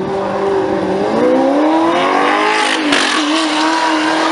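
Car engine revving hard as it accelerates, its pitch climbing, then a sharp crack about three seconds in, after which the note drops and holds steady.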